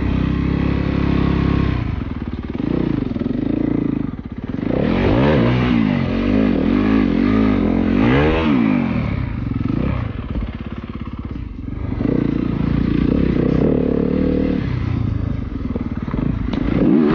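Yamaha WR250F dirt bike's 250 cc single-cylinder four-stroke engine running hard, its pitch repeatedly rising and falling as the throttle is opened and closed on a rough trail.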